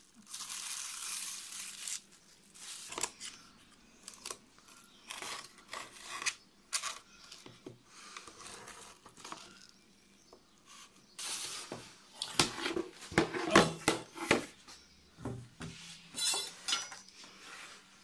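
Plastic cling film crinkling as it is peeled off a baking dish, then scattered clicks, scrapes and knocks as a knife works along the inside edge of the dish and the dish is handled, with a cluster of louder knocks and clatter about two-thirds of the way through.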